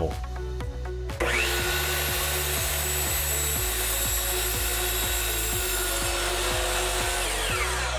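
Compound miter saw motor spinning up about a second in, its blade cutting through a rolled bamboo blind, then winding down near the end.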